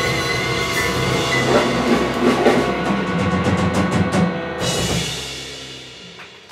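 Jazz big band of saxophones, trumpets, trombones, double bass and drum kit sounding a final held chord under a fast cymbal roll, cutting off sharply about four and a half seconds in and ringing away.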